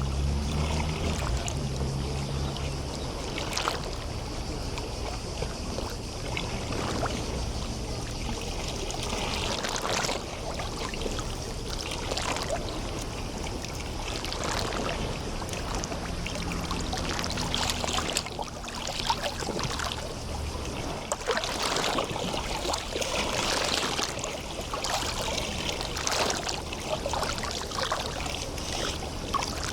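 Small waves lapping and splashing against the shore of a sea bay, with many short splashes that grow busier in the second half. A low engine drone from a boat comes and goes underneath, strongest at the start and again in the middle.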